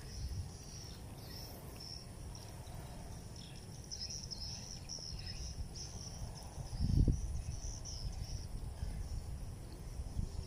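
Insects chirping in a steady high buzz, with a low rumble beneath and a dull thump about seven seconds in.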